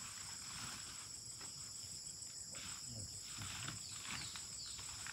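Steady high-pitched chorus of insects such as crickets, with a few short falling chirps about four seconds in.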